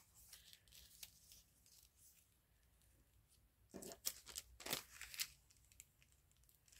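Mostly near silence with faint paper rustles and ticks, then a few louder rustles of paper being handled about four to five seconds in.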